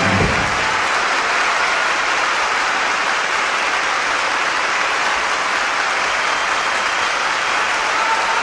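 Orchestra's closing chord cutting off just as it begins, then a large theatre audience applauding steadily.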